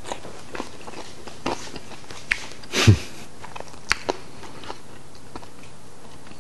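A person chewing a mouthful of crispy pan-fried turkey, stuffing and mashed-potato cake with bacon, close to the microphone: irregular small crunches and wet mouth clicks, with one louder mouth sound about three seconds in.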